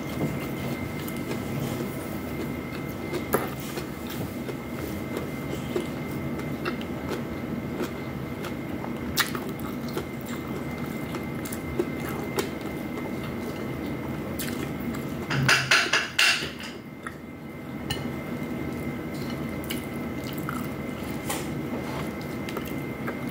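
Close-miked eating: chewing and mouth sounds as fried pork and rice are eaten by hand, with scattered small clicks and a louder crackly burst about fifteen seconds in, over a steady background hum.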